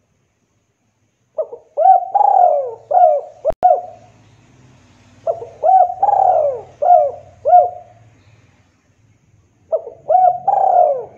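Spotted dove (derkuku) cooing: three phrases of several coos each, a second or so apart, the last running on past the end. A single sharp click falls in the middle of the first phrase.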